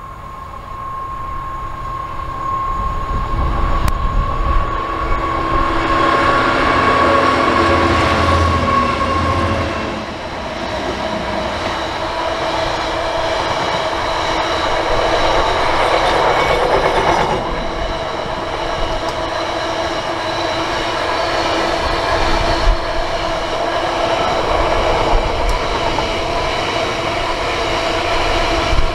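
Diesel freight locomotive passing at the head of a long train of hopper wagons. Its engine sound builds over the first ten seconds, then gives way to the steady rumble and clack of the wagons' wheels on the rails. A diesel passenger train passes on the far track around the middle, adding a brief loud swell.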